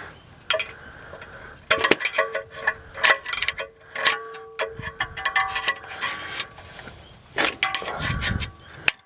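Metal hand tools clinking and clattering, several strikes ringing on briefly: someone rummaging through a toolbox for a screwdriver.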